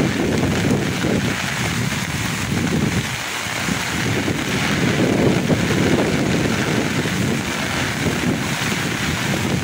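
Floodwater from a swollen river rushing steadily over and around a bridge, with wind buffeting the microphone.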